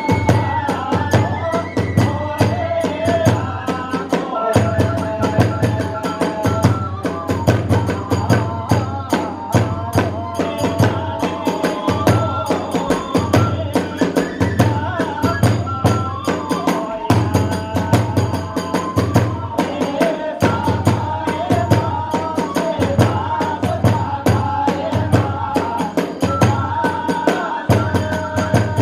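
Kagura hayashi ensemble playing a fast, driving rhythm: a big drum beating steadily, small hand cymbals clashing, and a bamboo transverse flute (fue) holding and bending a high melody over them.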